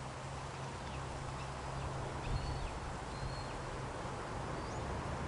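Outdoor orchard ambience: a steady hiss of wind through the apple tree's leaves, with several faint, short bird chirps and a low steady hum underneath.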